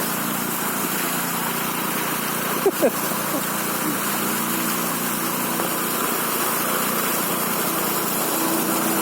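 A vehicle engine running steadily while the vehicle drives through floodwater, with a constant rushing noise.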